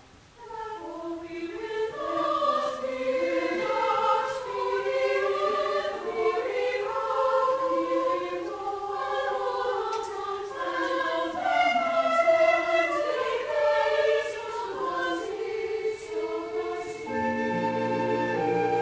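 Mixed choir singing a classical choral work with orchestra. It comes in after a brief pause, and near the end the voices give way to steady held instrumental notes.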